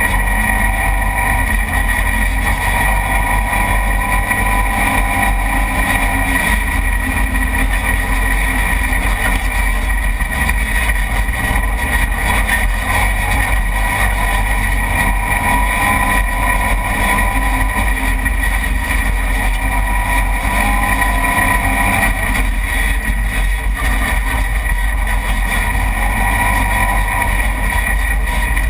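Side-by-side UTV driving fast on a dirt trail, its engine running steadily under load. It is heard from a hood-mounted camera, so the engine comes through together with rumble and rushing noise.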